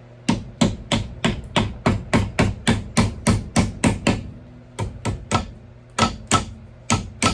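Hammer blows on a steel axe head, seating it onto its wooden handle: a quick run of about a dozen strikes, roughly three a second. After a short pause come a few more strikes in small groups, the later ones with a slight metallic ring.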